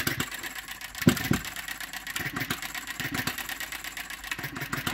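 Enjomor 6cc hit-and-miss model engine running on its Eachine CDI ignition, with sharp firing beats coming at uneven spacing; the loudest comes about a second in. Its ignition timing is a little out, as the owner says.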